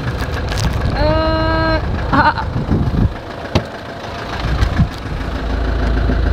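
Land Rover Defender 110's engine running steadily, heard from inside the cab, while the engine runs hot. A brief held tone sounds about a second in, and the low engine hum grows stronger near the end.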